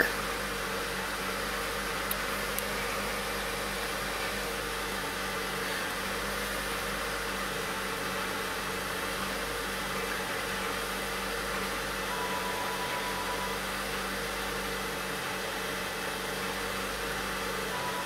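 2004 Honda Civic's 1.7-litre four-cylinder engine running steadily at a struggling idle. The EGR valve is stuck open: the scan tool shows about 3.8 mm of lift with zero commanded, and the engine is running rich.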